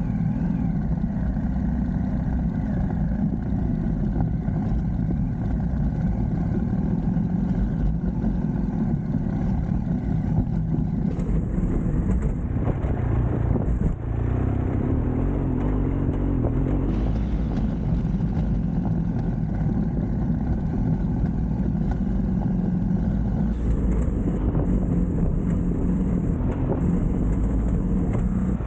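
A vehicle's engine running steadily as it drives along, with a brief dip in loudness about halfway through.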